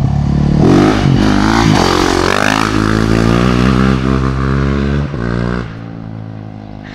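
Yamaha WR450's four-stroke single-cylinder engine running loud: the throttle is blipped a couple of times, then held steady. Near the end it drops back to a much quieter idle.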